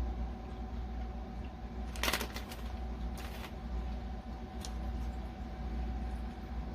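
Candy bar wrapper rustling and crinkling as it is handled, with short sharp crackles about two, three and four and a half seconds in, over a low steady hum.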